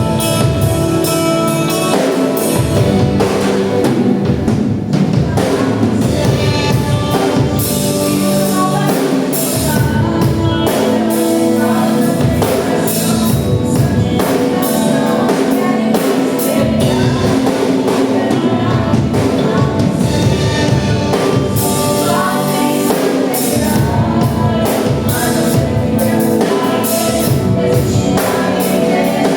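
Gospel worship music from a church worship band: drum kit keeping a steady beat under instruments and singing voices.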